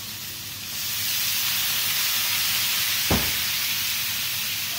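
White wine hitting a hot wok of sautéing chicken and prawns, hissing and sizzling hard as it boils off in steam; the hiss jumps up under a second in and stays loud. A single sharp knock about three seconds in.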